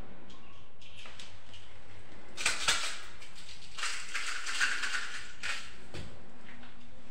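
Cake sprinkles rattling in a small jar as it is shaken over cupcakes, in two short bouts, with light clicks of containers being handled on the counter.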